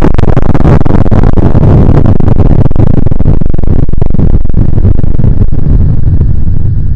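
Very loud, heavily clipped and distorted noise, dense and crackling with a heavy low rumble; the treble thins out in the last second or so.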